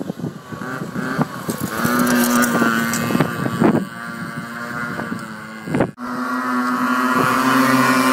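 Small motorcycle engine running and revving as the bike slides through the bends, its pitch rising and falling with the throttle. The sound drops out briefly about six seconds in and then picks up again.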